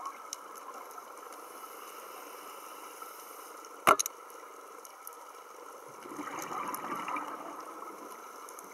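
Underwater sound through a camera housing: a scuba diver's exhaled air bubbling out for about a second and a half, some six seconds in. There are scattered faint clicks throughout, and one loud, sharp double click about four seconds in.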